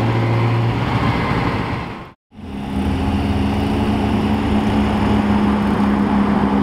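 Mid-engine Ferrari V8 sports cars driving past at low speed. First a Ferrari 360 Modena runs with a steady engine note. A short break in the sound comes about two seconds in. Then a Ferrari F430 approaches, also with a steady engine note and no hard revving.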